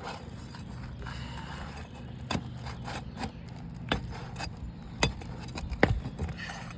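Asphalt roof shingles being pried up to work the nails out: light scraping with four sharp clicks, the last and loudest near the end.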